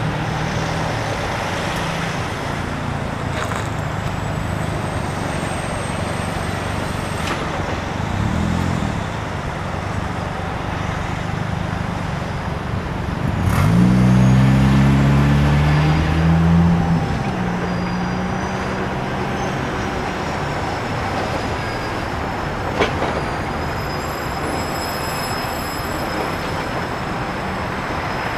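Tow trucks driving past one after another, their engines running, one rising in pitch as it accelerates about halfway through, the loudest moment. A single sharp click comes about three quarters of the way in.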